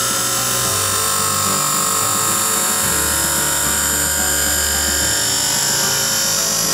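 Automatic lens edger grinding the edge of a plastic spectacle lens on a wet grinding wheel: a steady, high-pitched grinding whine.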